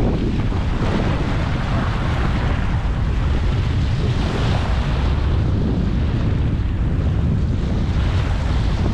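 Wind buffeting the microphone over the wash of surf against the shore rocks, the surf swelling and easing every few seconds.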